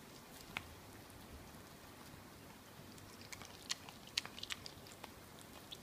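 Mini dachshund gnawing on a raw lamb shank: faint chewing and biting on the meat, with a quick cluster of sharp clicks between about three and four and a half seconds in.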